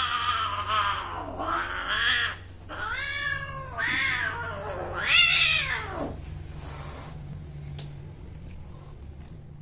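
A female Persian cat in heat yowling while the male mounts her: the mating cry. It is a run of long, wavering yowls, the loudest about five seconds in, and it breaks off about six seconds in.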